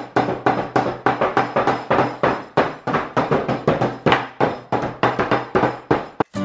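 A claw hammer repeatedly banging on chocolate bars still in their wrappers on a wooden table, crushing them: sharp, even blows several times a second that stop suddenly near the end.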